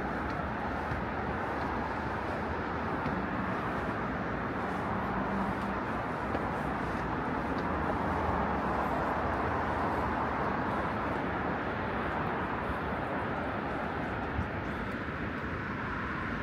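Street ambience of road traffic: a steady hiss of tyres and engines that swells about halfway through as vehicles pass, then eases near the end.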